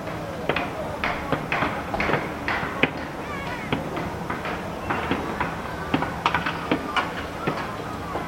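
Building-site ambience: irregular sharp knocks and clacks, several a second at times, over a steady background hum.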